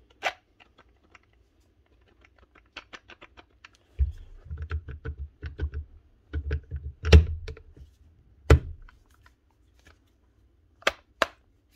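Handling clicks and knocks of an angle grinder's metal gear head and plastic motor housing being fitted together by hand, with a run of dull knocks from about four seconds in, the loudest near the end of that run.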